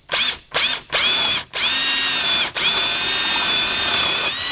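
Cordless drill with a half-inch spade bit boring into a plywood bench top. It gives two short trigger pulses to start the hole, then three longer runs, and the motor whine rises as it spins up each time.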